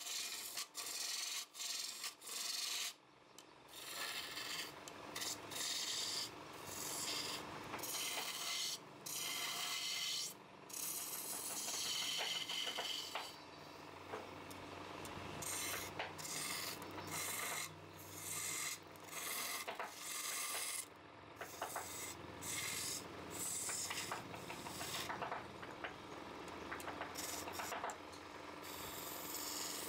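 Wood spinning on a lathe and worked by hand: a steady scraping hiss that breaks off briefly and starts again every second or two, over a faint steady hum.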